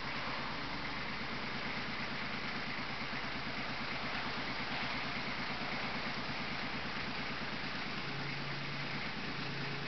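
Kubota B2400 compact tractor's three-cylinder diesel engine running steadily with a rapid, even pulse. A steady hum comes up near the end.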